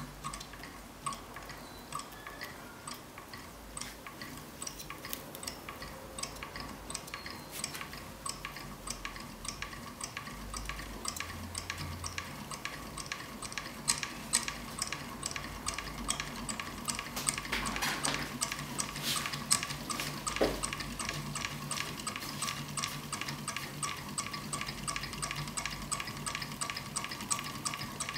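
Homemade gamma-type Stirling engine running slowly under a wick flame, its flywheel linkage and pistons giving a regular light click on each stroke. The clicks quicken over the first half, from about one a second to about three a second, and then hold steady. It sounds like an old engine.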